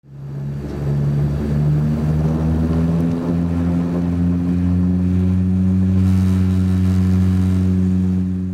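Saab 340B's twin GE CT7-9B turboprop engines and propellers running with a steady, deep drone. The sound fades in over the first second, and its pitch shifts slightly during the first two seconds before holding steady.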